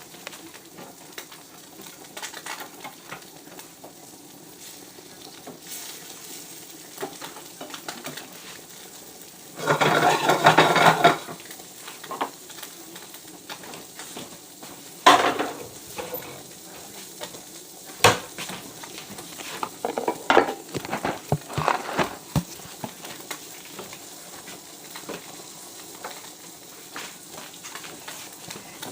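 Fish frying in a pan, a steady sizzle throughout. A utensil scrapes and clatters against the pan, loudest for over a second about ten seconds in, with sharper knocks and scrapes later.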